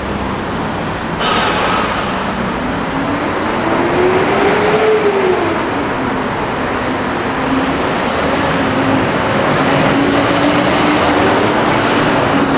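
Busy city traffic noise, with one vehicle's engine or motor rising in pitch over a few seconds, dropping back, then holding a steady note.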